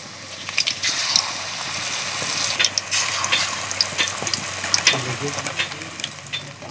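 Besan-battered helencha (hinche) leaves deep-frying in hot oil: a steady sizzle with scattered crackles and pops as the pakoras cook.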